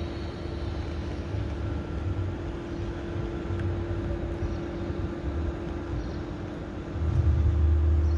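Steady low rumble with a constant hum, growing louder for about a second near the end.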